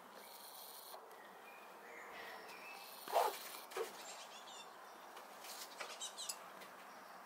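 Red squirrel calling: a short, harsh burst about three seconds in, then a few high, curving chirps and a quick run of short squeaks near the end.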